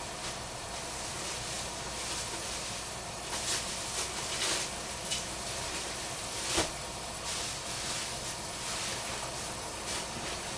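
Food simmering in a covered stainless-steel saucepan on a gas stove: a steady hiss with a few small pops and ticks, the sharpest about two-thirds of the way through.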